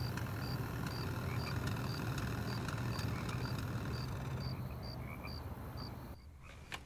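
Night ambience on a film soundtrack: a small animal's short high-pitched chirp repeating evenly about twice a second over a low steady hum. Both cut off together about six seconds in.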